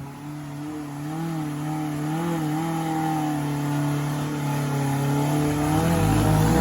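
Off-road 4x4's engine running hard under load as it climbs a steep slope under its own power, the pitch wavering slightly and the sound growing louder. A low rumble and a change in engine note come near the end.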